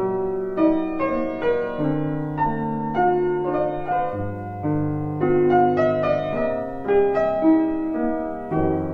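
Background piano music: a slow melody over held bass notes.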